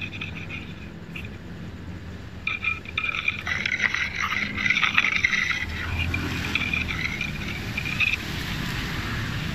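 Scraping and rattling from hands working at a MIG welder's wire feed and cables, with a vehicle rumbling past on the road about six seconds in.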